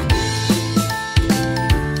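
Upbeat music with bell-like chiming notes over a steady beat.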